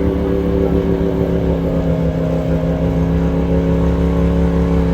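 Off-road vehicle engine running loud at steady, held revs, its pitch barely changing.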